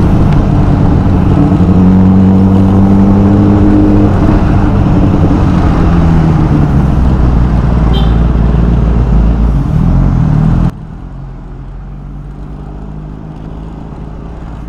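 Kawasaki ZX-10R inline-four with an Akrapovic exhaust running in city traffic, heard from just behind, its pitch rising and falling as the throttle opens and eases. About three-quarters of the way through, the sound drops suddenly to a much quieter engine hum.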